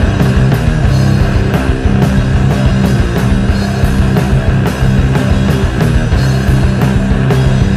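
Loud rock music with a steady drum beat and heavy low bass notes.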